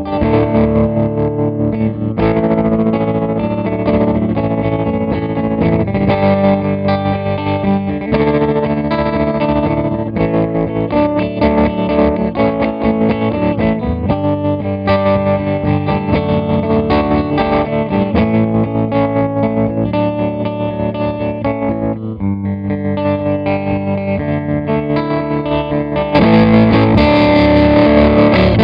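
Electric guitar chords played through a CopperSound Loma Prieta gritty harmonic tremolo pedal, with a distorted edge and a fast, steady pulsing in volume. Near the end the playing gets louder and brighter.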